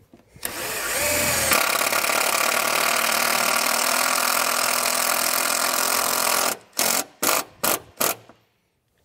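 Cordless impact driver running a self-tapping screw into thick metal: one long continuous run of about six seconds, then about five short bursts as the screw is snugged down.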